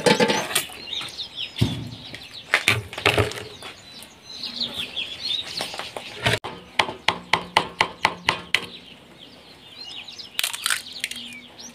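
Sharp taps and clicks of eggs being cracked against a bowl, with a quick run of taps in the middle. Birds chirp faintly in the background.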